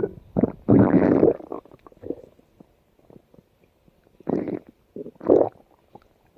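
Stomach growling: irregular gurgling rumbles in bursts. The longest comes about a second in, then there is a quiet stretch, then two shorter gurgles near the end.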